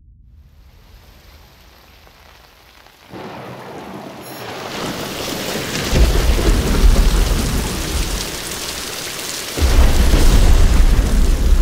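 Thunderstorm sound effect: rain comes in about three seconds in and grows heavier, with a deep rumble of thunder about six seconds in and a second roll of thunder near the end.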